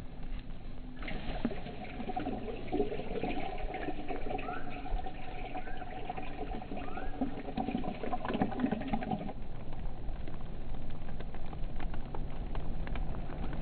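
Liquid poured into a container while making coffee, starting about a second in and stopping about nine seconds in, followed by a steadier hiss.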